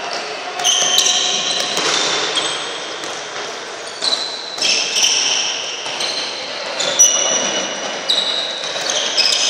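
Rubber-soled court shoes squeaking on a wooden sports-hall floor as handball players cut and stop, in short high squeals that come in clusters. Among them are several sharp thuds of the handball and footfalls.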